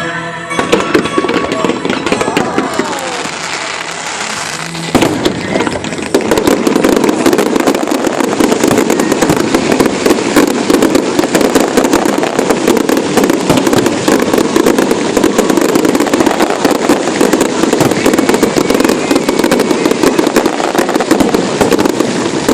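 Fireworks display: a dense crackling and popping of bursting shells that thickens into a continuous loud barrage about six seconds in.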